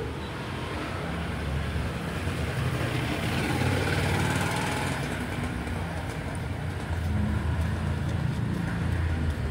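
Road traffic: vehicle engines rumbling by, the low rumble swelling twice as vehicles pass.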